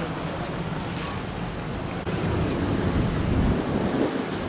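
Steady wind noise on the microphone with surf. About two seconds in there is an abrupt cut, and after it the rumble is louder and deeper.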